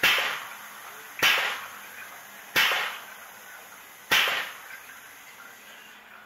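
Hydrostatic test pump stroking as it pressurises a water-filled scuba cylinder toward its 5,000 psi test pressure. There are four sharp strokes, each fading over about half a second, and they come a little farther apart each time.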